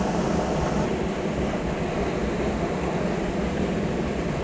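Steady rushing of water pouring through a concrete lake drain, a constant low noise with no breaks.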